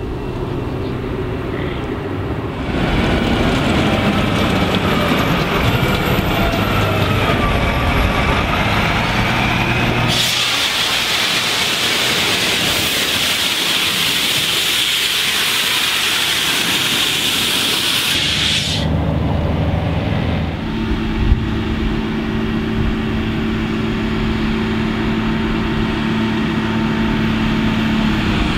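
Large farm tractors pulling silage trailers. About three seconds in the engine noise grows louder and its pitch shifts. From about ten to eighteen seconds in there is a loud rushing hiss, and then a steady, even engine hum.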